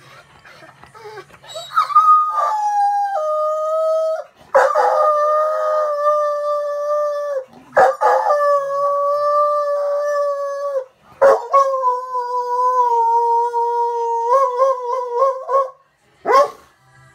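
Chesapeake Bay Retriever howling, four long drawn-out howls one after another, each holding a steady pitch with small steps and a wavering finish, then a short yelp near the end. It is a demanding howl, which the owner takes for him asking for his ice cream.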